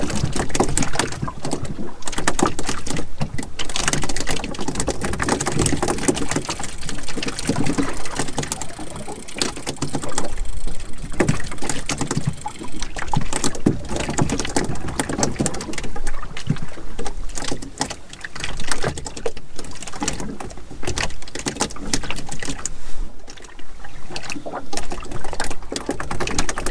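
Wind buffeting the microphone and water slapping against the hull of a small open boat, an uneven rushing noise that swells and dips.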